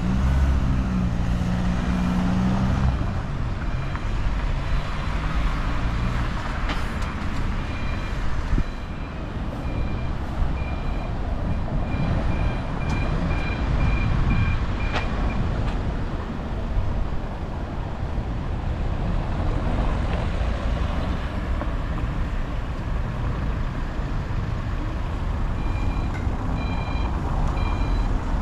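City street traffic with passing cars, an engine running close by at the start. A short high electronic beep repeats through the first half, coming faster around the middle, and starts again near the end.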